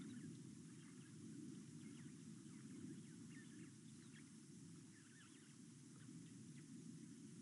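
Faint, scattered short chirps of small birds over a steady low hum of background noise.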